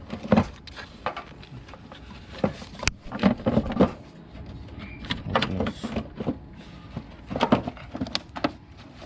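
Irregular plastic clicks and knocks as the engine's air filter housing is unclipped, pried with a screwdriver and opened, with one sharp snap about three seconds in.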